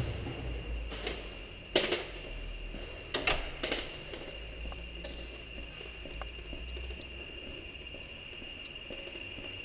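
A few sharp knocks and clatters in the first four seconds, with fainter ones later, over a faint steady high hum and a low rumble.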